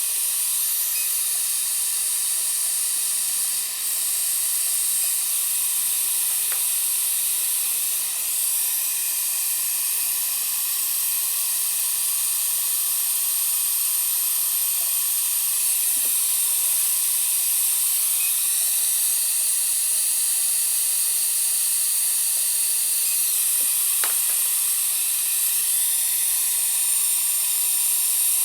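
High-speed dental handpiece running with its water spray: a steady high hiss and whine, dipping briefly in pitch a few times as it meets the tooth.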